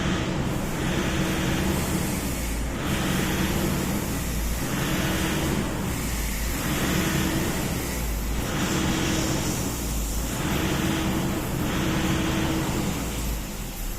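Toyota Innova diesel engine running with an unsteady idle, its note swelling and dropping every second or two. The hunting rpm is the sign of a fault in the fuel system, found during a fuel-leak test.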